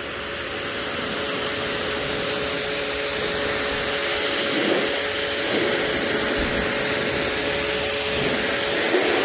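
Pressure washer running steadily, its 40-degree nozzle spraying deionized water onto a car's painted fender: an even hiss of spray with a steady hum underneath.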